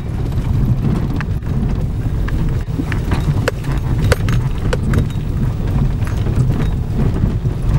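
Volcanic ash and small stones striking a moving pickup truck's roof and windshield: many irregular sharp ticks over a steady low rumble of the engine and road.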